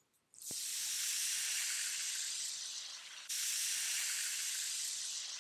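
Potato sticks deep-frying in hot oil in an iron kadai: a loud, steady sizzle that starts a moment in as they go into the oil, cutting out briefly just after three seconds before resuming.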